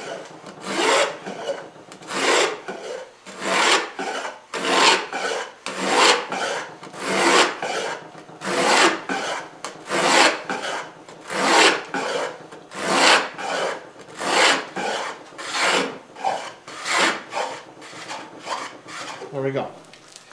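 Wooden beading plane cutting a bead along the edge of a pine board, pushed in about fifteen even strokes a little over a second apart, each a scraping swish of the iron taking a shaving.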